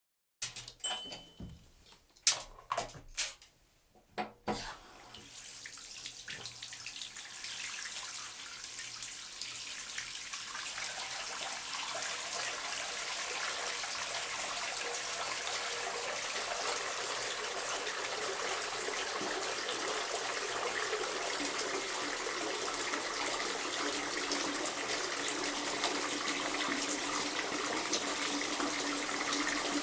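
Bathtub being filled from the tap: a few sharp knocks in the first seconds, then running water starts about four seconds in and builds to a steady gush that grows gradually louder.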